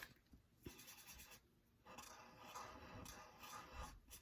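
Faint scratching of a colouring tool on paper as gumballs on a worksheet are coloured in, in two stretches: a short one just under a second in and a longer one from about two seconds in until near the end.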